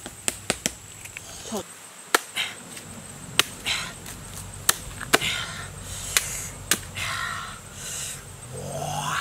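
A knife chopping into a fresh bamboo shoot: a string of sharp, separate chops, with rustling of the husk and dry bamboo leaves between them. A short rising call is heard near the end.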